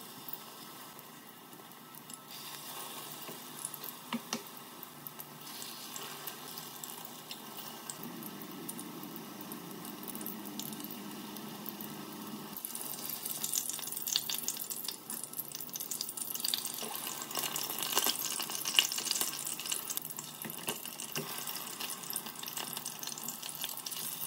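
Potato zrazy (cheese-filled potato patties) frying in hot vegetable oil in a stainless-steel pan: a steady sizzle with crackling spatter, which grows louder and denser about halfway through.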